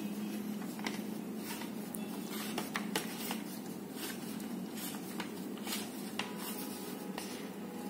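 Steady low room noise with scattered light clicks and knocks as a plastic sprayer container is handled; the sprayer's motor is not running.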